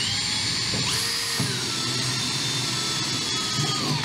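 Makita cordless drill with a small bit drilling a pilot hole through a fiberglass flange for a screw: a steady high motor whine that picks up speed about a second in, then winds down and stops at the end.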